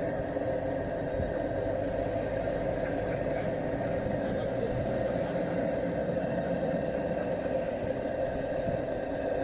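Repaired paraffin blowlamp burning steadily as it preheats a Lanz Bulldog's glow head, a constant roar of the flame with its nozzle freshly cleaned.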